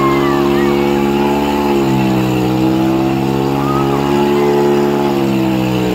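Mahindra 585 DI tractor's diesel engine running hard under a heavy pulling load. Its engine speed sags briefly about two seconds in and again near the end.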